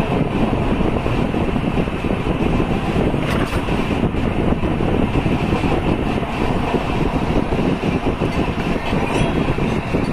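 Passenger train running at speed, heard from inside the coach: a steady rumble and rattle of the wheels on the track.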